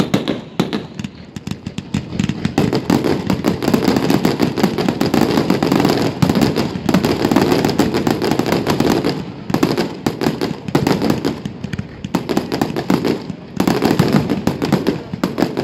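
Fireworks display: a dense, rapid volley of bangs and crackling from bursting aerial shells. It eases off for a while and then picks up again near the end.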